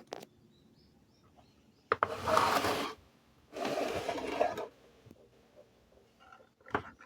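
Two rubbing, scraping sounds of about a second each, with a few light knocks around them.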